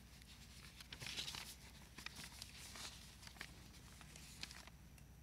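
Faint rustling of paper notes being handled and turned at a podium microphone, over a low steady hum.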